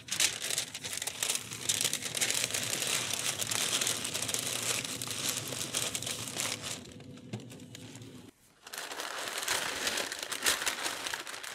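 Pink butcher paper crinkling and rustling as hands fold it tightly around smoked beef ribs. About eight seconds in the sound drops out briefly, then the paper crinkles again as the parcel is unwrapped.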